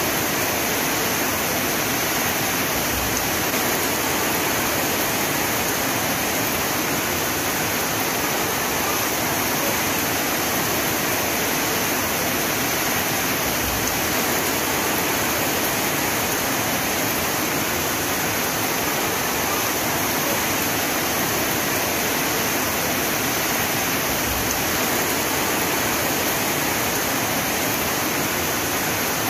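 Heavy rain as a steady, even hiss, with no single drops or changes standing out.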